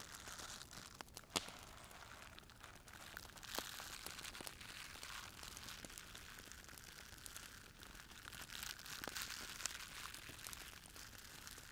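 Soft, steady crackling and crinkling, with a few sharp clicks standing out, played as an ASMR trigger.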